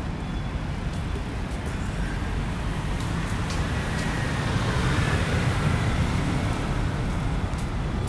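City road traffic: cars and motor scooters passing on a multi-lane road, a steady rumble that swells about halfway through as vehicles go by.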